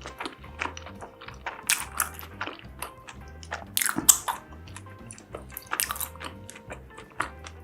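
A person eating spicy food: chewing and biting, with many short sharp crunches and clicks and a louder bite about four seconds in. Background music with a repeating low bass line plays underneath.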